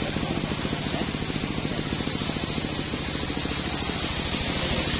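Chainsaw engine idling steadily, with a high hiss that grows louder near the end.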